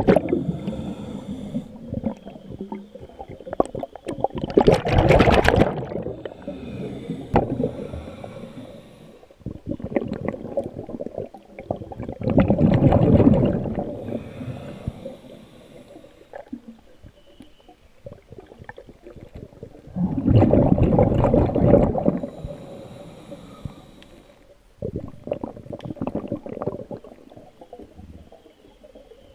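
A diver breathing underwater through a scuba regulator: a burst of exhaled bubbles every few seconds, with quieter inhaling hiss between them.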